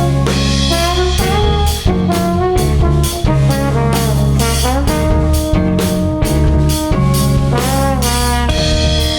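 A small band playing: a trombone plays a melodic line with slides between notes over a steady drum-kit beat and low baritone-guitar notes.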